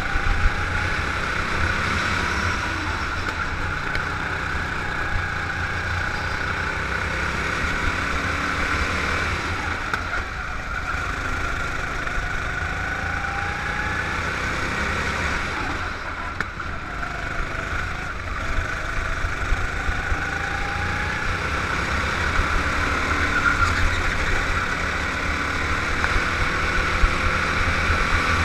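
Go-kart engine running at speed, heard from the driver's seat, its note rising and falling a little as the kart speeds up and slows for the corners, over a constant low rumble.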